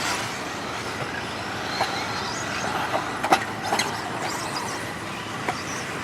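Electric 2WD stock-class RC buggies racing on an off-road track: a steady hiss of motors and tyres, with a few sharp clacks, the loudest about three seconds in.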